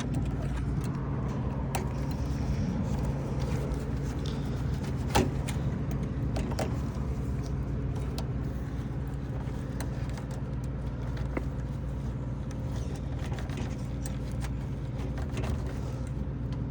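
Steady low machine hum, with a few sharp clicks and taps from handling wires and tools at the contactor terminals.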